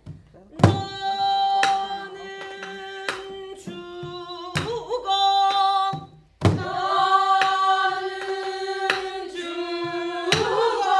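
A woman singing a Korean Namdo folk song (minyo) in long held, bending notes, accompanying herself on a buk barrel drum struck with a wooden stick. The drum knocks fall about once a second, and there is a short break in the singing about six seconds in.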